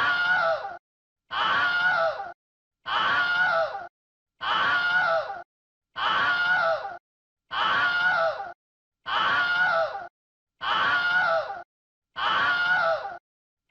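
A human scream sound effect looped: the same scream of about a second, dropping in pitch, repeats about every second and a half with silence between, some nine times.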